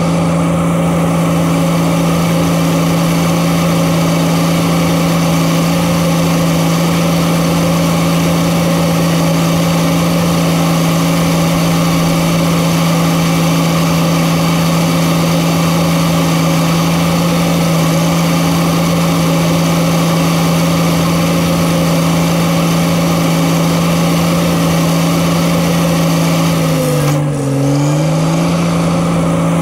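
Diesel engine of a Case earthmoving machine running steadily at high revs while the machine moves. Near the end the engine speed sags briefly and recovers.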